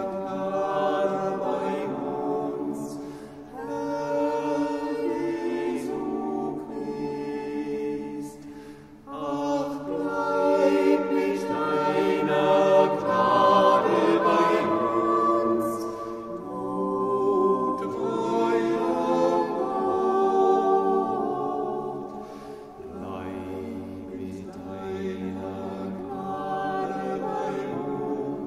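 Group of voices singing a Taizé chant together, in phrases of a few seconds with short breaks between them.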